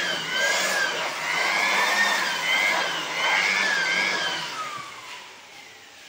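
Vacuum cleaner motor running while its hose nozzle cleans dust out of a desktop PC case, the pitch rising and falling as the nozzle moves. About five seconds in, the motor is switched off and winds down with a falling whine.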